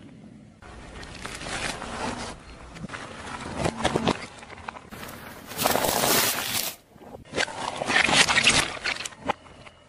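A car tyre rolling slowly over small objects on asphalt and crushing them: soft clay, a plastic tube and a bead-filled ball, in a series of short clips with abrupt cuts. The sound is crunching, squishing and crackling, loudest a little past the middle and again near the end, with crisp crackles around eight seconds in.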